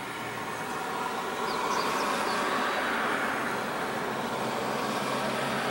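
Jet airliner's twin engines running on the runway after landing, heard from a distance as a steady rush that swells a little about a second in and then holds.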